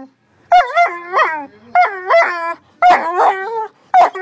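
Great Dane whining in a run of short, drawn-out cries, each bending up and down in pitch, with brief gaps between them.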